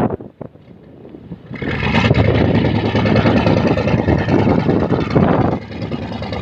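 An engine running loud and steady, coming up about a second and a half in and easing off a little near the end.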